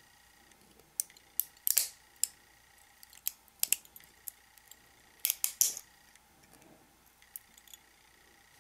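Needle-nose pliers clicking and snapping as they pick 3D-printed plastic support material off a printed part: short, sharp clicks in scattered clusters, the busiest around two seconds in and again around five to six seconds in.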